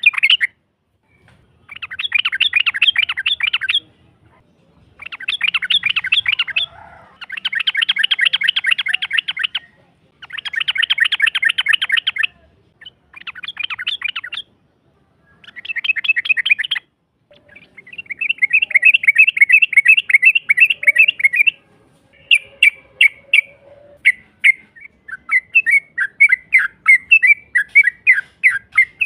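Yellow-vented bulbul (trucukan) song: long, rapid rolling chatters ('ropel'), each phrase about two seconds, repeated after short pauses. In the last several seconds the notes slow into a run of separate sharp chirps.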